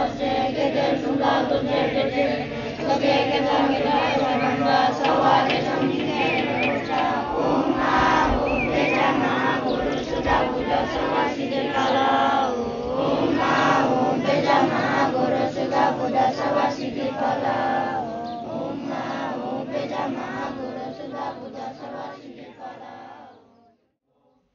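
A large group of schoolchildren chanting a prayer in unison, many voices together; it grows quieter over the last few seconds and cuts off just before the end.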